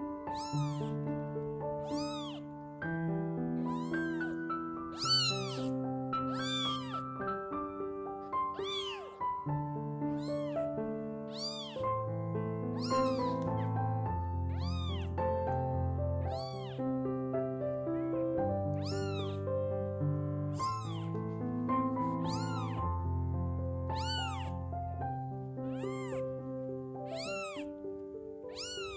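Newborn kitten meowing over and over, about once a second, in short high calls: the isolation cry of a kitten left behind by its mother, calling for her. Background music of slow held notes plays underneath.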